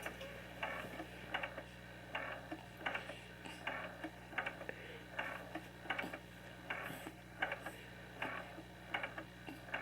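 Steady, evenly spaced clicking, about four clicks every three seconds, over a faint low hum.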